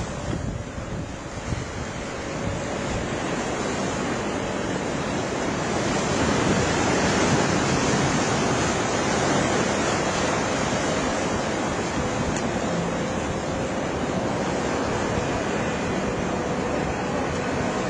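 Wind buffeting the microphone over the wash of water, with the faint drone of a Tohatsu 70 hp two-stroke outboard on a boat running offshore, its pitch drifting slowly as the boat moves.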